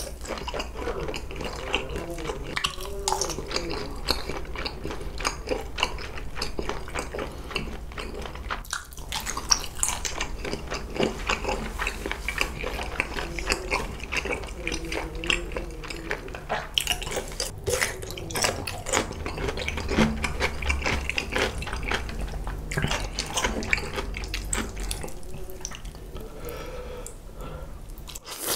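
Close-miked eating sounds: wet chewing and smacking of spicy stir-fried noodles and grilled makchang, a dense run of small moist clicks.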